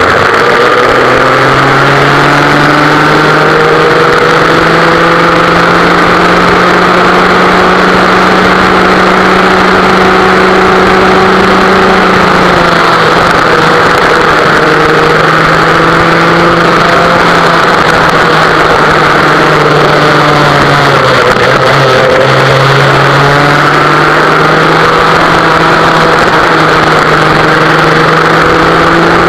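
Vintage West Bend two-stroke kart engine running hard under throttle, heard onboard. Its pitch climbs at the start, holds high, falls back about twelve seconds in, sags lowest a little past two thirds of the way, then climbs again.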